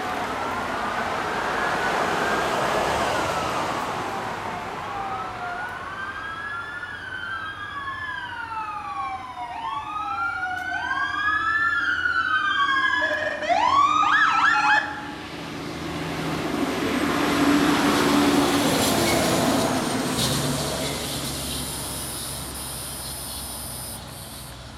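Fire engine pumper's siren sounding a slow rising-and-falling wail, which speeds up into a faster yelp and then a rapid warble before cutting off suddenly about halfway through. The truck's engine and road noise then swell and fade away.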